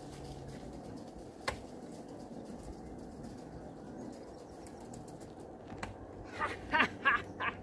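Latch and mesh door of a wooden pet hutch clicking and rattling as they are worked by hand. A single click comes early, another just before the end, then a quick run of sharp clicks and rattles.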